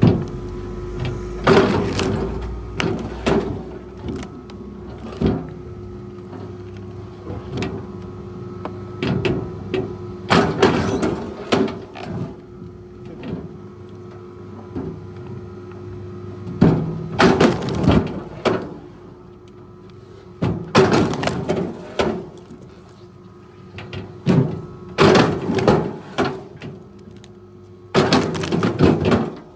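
A heavy machine's engine running steadily, with loud knocks and clatters every few seconds.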